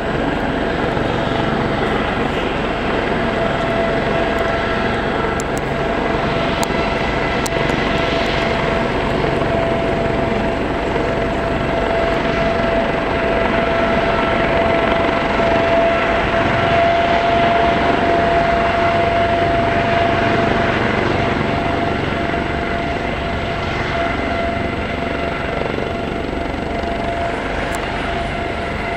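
Aérospatiale SA365N1 Dauphin 2 helicopter running on the ground before lift-off: its twin turboshaft engines and spinning rotors make a steady, even noise with a continuous whining tone over it.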